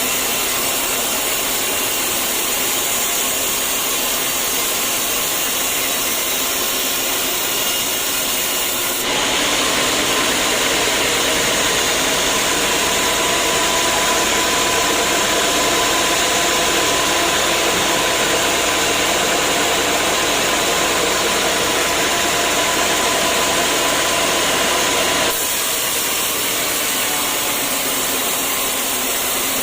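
Sawmill machinery running with a steady, even noise. The noise turns abruptly louder and brighter about nine seconds in and drops back just as suddenly some sixteen seconds later.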